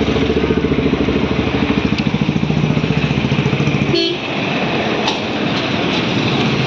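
A vehicle engine idling close by, a steady hum with a fast pulsing beat. About four seconds in there is a sharp click, and the engine tone gives way to rougher noise.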